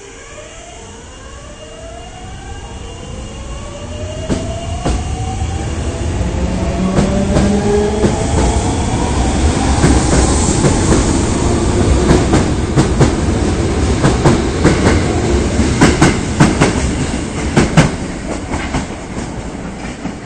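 Osaka Municipal Subway 22 series train pulling away: its motors give a whine of several tones that climb in pitch as it speeds up. Wheels clack over the rail joints, faster and louder as the cars go by, easing off near the end.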